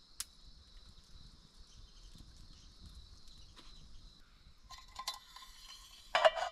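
Metal clinks and a ringing clank as a metal mug is lifted off an S-hook on a metal hanging rack, the loudest clank shortly before the end. A steady high-pitched drone runs underneath for the first few seconds.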